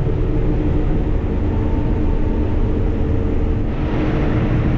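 Cotton stripper's diesel engine running steadily under harvesting load, a constant low rumble and hum. About four seconds in, a rushing hiss rises over it.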